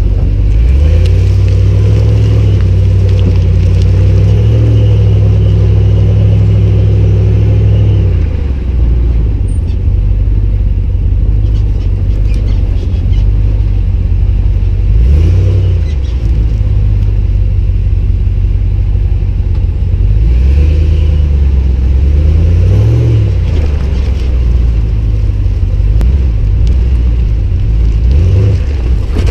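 Ram Power Wagon's 6.4-litre HEMI V8 running under load, its revs rising and falling several times.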